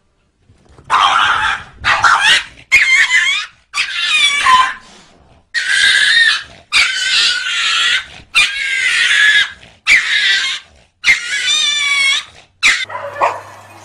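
A dog giving a run of about ten loud, whining cries with bending, wavering pitch, each under a second long, with short pauses between them.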